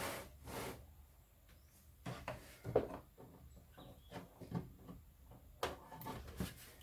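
Scattered light clicks and knocks from a computer power supply and its cables being handled and pushed into place. The fan is not yet running.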